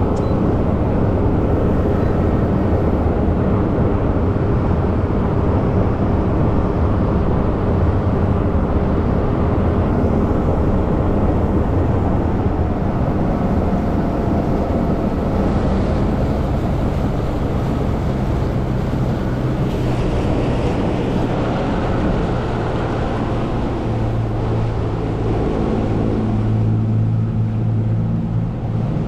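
Outboard motor of a fishing boat running at speed, with rushing water against the hull. In the last few seconds the engine note turns into a steadier, clearer drone.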